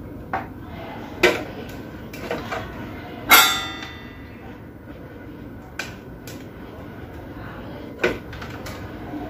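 Hand tools being handled and set down on a workbench: scattered clicks and knocks, the loudest a sharp metallic clink with a short ring about three seconds in.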